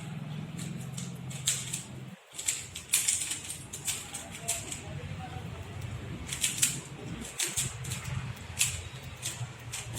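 Rubik's Cube being turned rapidly during a speed solve: irregular runs of quick plastic clicks as the layers snap round, over a steady low hum.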